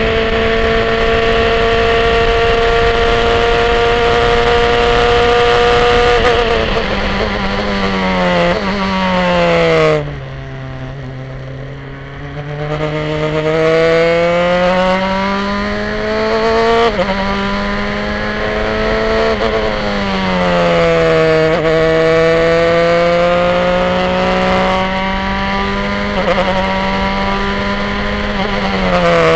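Onboard sound of a Formula 3 racing car's engine. It is held flat out at high revs, then drops in quick steps as the car brakes and downshifts. After that it climbs hard through the gears with short upshift breaks, falls again on a second braking about two-thirds through, and picks up once more.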